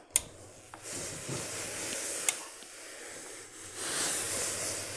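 Steam iron releasing steam onto a wool jacket with a hiss in two spells: from about a second in, and again near the end. Two sharp clicks, one right at the start and one a little after two seconds.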